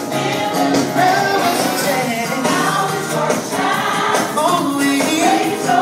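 Gospel choir singing with instrumental accompaniment, a full, continuous performance.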